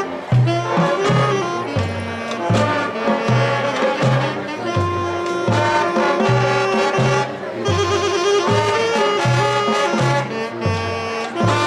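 High school marching band playing a brass-heavy tune, with sustained horn notes over a repeating low bass line.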